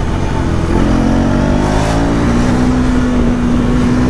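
Motorcycle engine running at cruising speed with wind noise on the microphone. The engine note dips, then steps up about a second in, and holds steady after that.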